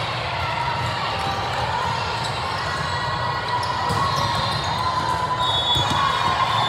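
Volleyballs being struck and bouncing in a large, echoing sports hall, a few sharp thuds spread through the rally, over the steady hum and chatter of a busy multi-court gym.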